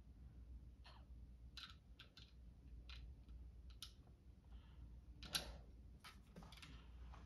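Faint, irregular clicks of small plastic Lego pieces being picked up and pressed onto a Lego plate, with one slightly louder click about two-thirds of the way through.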